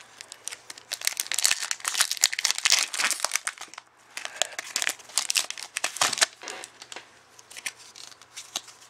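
Foil wrapper of a Pokémon booster pack crinkling and tearing as it is ripped open and the cards are pulled out. It is loudest in the first half, then turns to softer, scattered rustles of the wrapper and cards.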